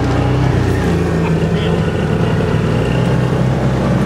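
Off-road vehicle's engine running steadily while driving over a sandy track, its note shifting slightly about a second in.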